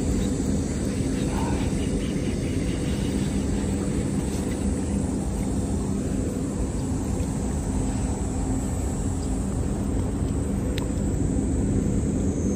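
A steady low mechanical drone with a constant hum, unchanging throughout, with one faint click near the end.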